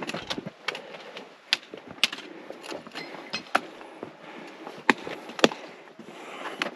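A hiker climbing a rocky boulder slope: irregular sharp clicks and knocks of boots and gear striking rock, over the rustle of movement, with two louder knocks near the end.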